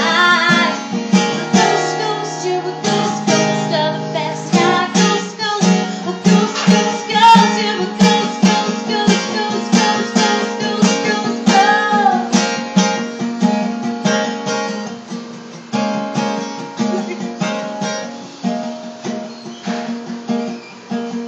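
A woman singing to her own strummed steel-string acoustic guitar; the strumming grows quieter over the last several seconds.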